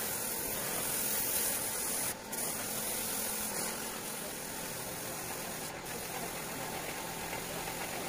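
Air-fed spray gun hissing as adhesive is sprayed onto sofa foam, with two short breaks, about two seconds in and near six seconds, where the trigger is let go. A steady low hum runs underneath.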